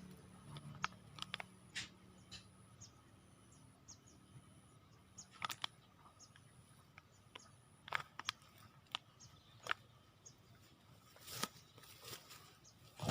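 Quiet outdoor ambience: scattered sharp clicks and taps, with a faint high-pitched tone pulsing on and off about once a second that stops a little past halfway.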